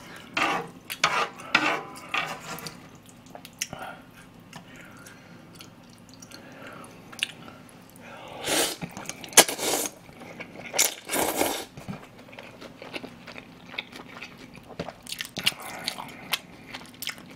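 A person eating cold, spicy chewy noodles (jjolmyeon) with chopsticks. Sharp clicks come at first as the chopsticks stir the noodles, then a few loud slurps about halfway through, with chewing between and after.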